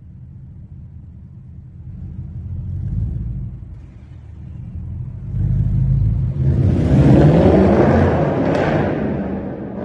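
Audi S7 V8 with the muffler deleted, its straight-through exhaust rumbling low and then building to a loud rev that peaks about seven seconds in before falling away, with a sharp crack near the end.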